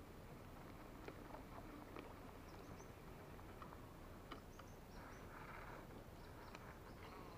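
Near silence: faint open-air background with scattered soft clicks and a few short, high chirps.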